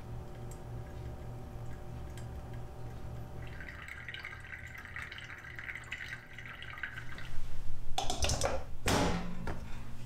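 Hot water poured in a thin stream from a gooseneck kettle onto coffee grounds in a paper filter dripper, a soft trickle that is clearest in the middle. About eight seconds in, louder knocks and rattles as the glass coffee server is handled on the stainless steel counter.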